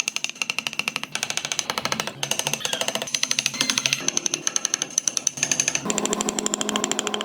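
A power tool working wood with a rapid, regular chatter of impacts.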